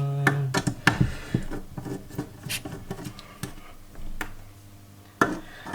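Irregular light clicks, taps and clatter of hands handling the parts and screws of a small PC case being taken apart.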